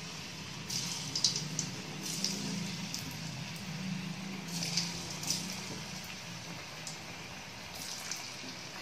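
Marinated paneer pieces deep-frying in hot oil: a steady sizzle with sharper crackles now and then. The oil is well heated.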